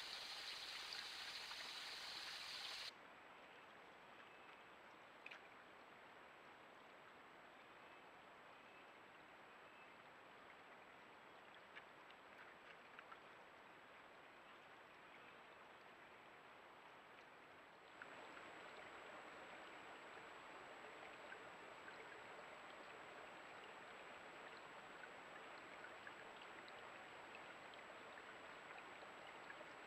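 Faint, steady rush of a small creek's running water, with no animal calls. The level steps down about three seconds in and back up near eighteen seconds in, and a faint, high, steady whine sits underneath.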